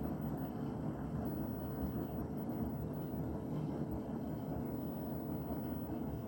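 Beko WTK104121W washing machine running a hot drum-clean cycle: the drum turning with water sloshing inside, over a steady motor hum.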